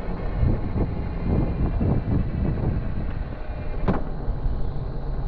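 Suzuki GSX250 motorcycle running with its engine on, a low uneven rumble mixed with the rattle of the drive chain, the well-known chain noise this model develops. Wind buffets the microphone, and there is one sharp click about four seconds in.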